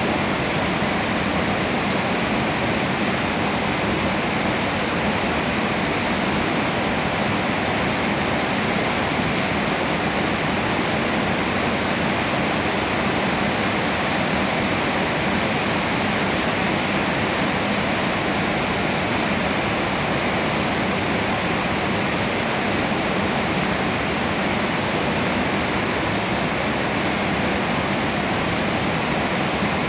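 Steady rain falling on leafy trees, an even hiss that holds at one level without let-up.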